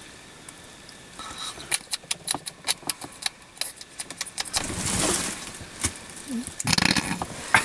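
Handling noise from a hand-held camera held close to the microphone: a run of light clicks and rubbing, with a short rush of noise a little past the middle and another near the end.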